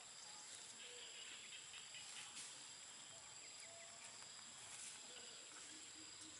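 Near silence: faint outdoor ambience with a steady high-pitched insect drone and a few faint, short chirps.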